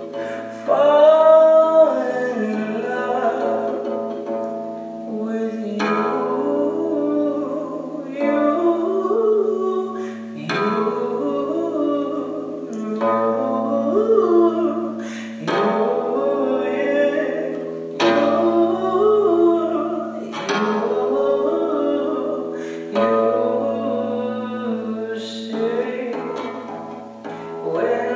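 A solo acoustic song: a voice singing long, sliding notes over plucked acoustic guitar chords, a new chord struck every few seconds.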